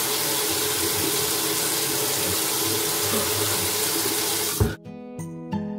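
Bathroom sink tap running steadily, cut off abruptly with a thump about four and a half seconds in; background music with a steady beat then starts.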